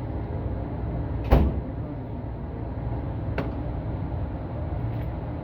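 A single gunshot from a newly built 300 Blackout rifle about a second in, with a fainter sharp crack about two seconds later, over a steady low rumble.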